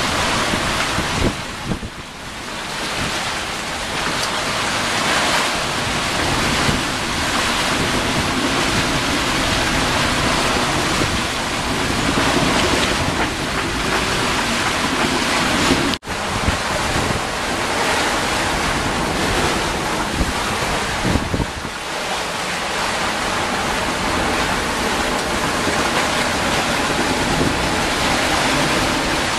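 Strong wind buffeting the microphone over the steady rush of breaking waves and white water around a sailboat in rough, building seas. The sound drops out for an instant about halfway through.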